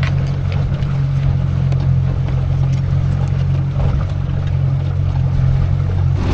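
A boat's outboard motor running steadily, a constant low hum.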